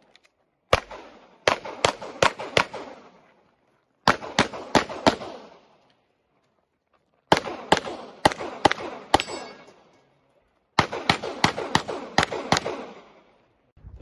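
Handgun shots in quick strings of three to five, about four shots a second, with pauses of a second or two between strings. Each string trails off in echo.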